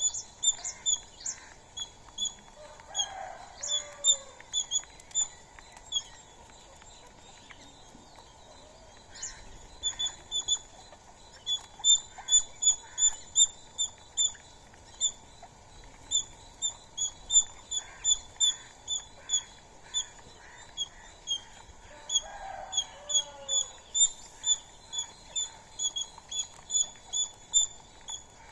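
Long runs of short, high-pitched chirps repeated about two to three times a second, pausing around 6 to 9 seconds in and resuming. A couple of fainter, lower calls come in about 3 seconds in and again near 22 seconds.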